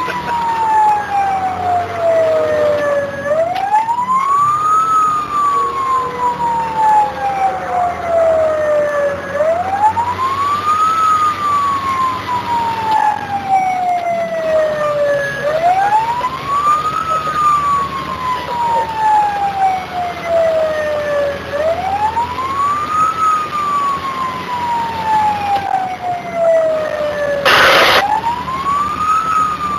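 Fire engine siren in a slow wail: each cycle rises quickly and falls off slowly, about once every six seconds. Under it runs the steady low hum of the truck's diesel engine. A short loud burst of noise comes near the end.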